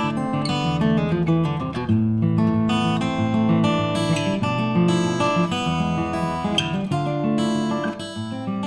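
Outro music: strummed acoustic guitar playing chords.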